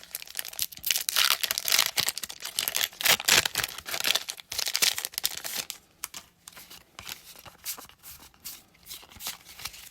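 Foil Pokémon card booster pack being torn open and crinkled, a dense crackling for the first five seconds or so, then softer scraping and ticking as the cards are slid out and handled.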